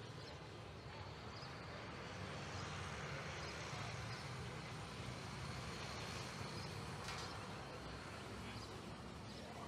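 Prevost coach bus driving over the railroad crossing: a low, steady engine hum that swells slightly in the middle as it passes.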